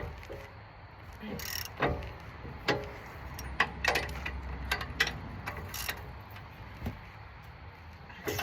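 Hand tools working on brake bolts: irregular metallic clicks and clanks, some with a short ring, a few seconds apart.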